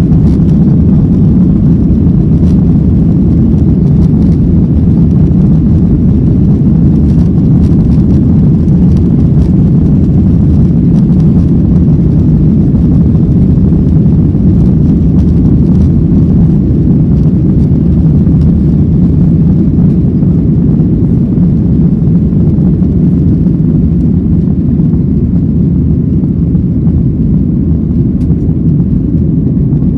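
Boeing 737-800 heard from inside the passenger cabin during takeoff: its CFM56-7B turbofan engines run at high thrust as a loud, steady, low rumble, which eases slightly near the end.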